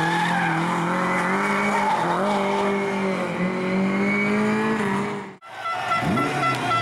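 Lada rally car's four-cylinder engine revving hard, its pitch rising and dipping through gear changes as the car slides through a corner and pulls away, with some tyre squeal. The sound cuts off suddenly about five seconds in, and another rally car's engine follows.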